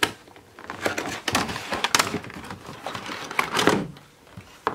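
A cardboard doll box with a clear plastic window being handled and turned over in the hands, giving a run of irregular crinkling rustles and light knocks, busiest in the middle and dying away near the end.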